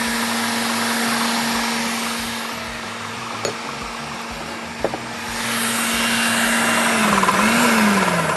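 Electric blender running steadily, mixing a chocolate sauce, with its motor pitch dipping and falling near the end. Two light knocks in the middle.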